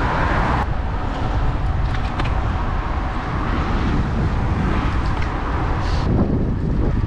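Steady rush of wind on the microphone and road noise while riding a road bike on a road with traffic.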